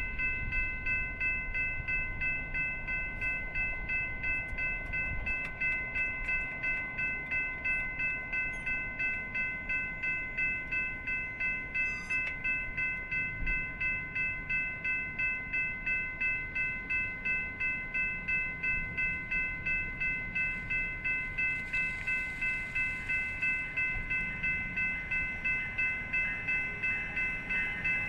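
Electronic level-crossing bell ringing in steady, rapidly repeated strokes, warning that a train is approaching the crossing.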